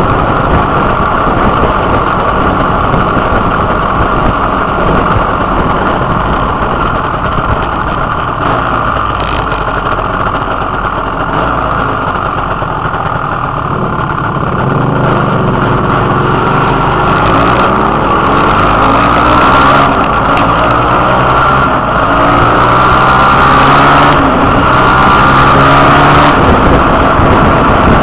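Motorcycle engine running at road speed, with wind rushing over the microphone. From about halfway the engine's pitch climbs and steps up again and again as the bike accelerates through the gears, growing louder near the end.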